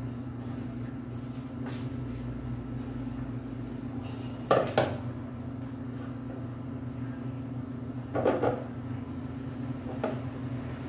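Kitchen handling noise as things are put away: a few knocks and clatters, the loudest about four and a half seconds in and another near eight seconds, over a steady low hum.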